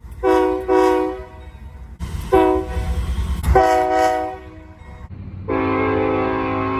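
Locomotive air horns sounding a chord of several notes in a series of blasts: two short blasts, then a short and a longer blast over the low rumble of a moving train, then a long blast starting near the end.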